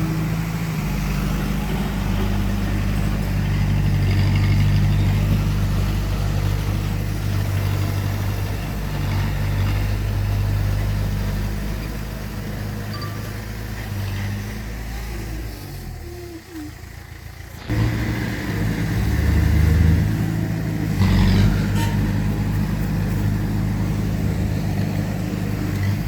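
Diesel engine of heavy earthmoving machinery running under load, its low tone rising and falling as it works. It fades away for a moment about two-thirds through, then comes back suddenly.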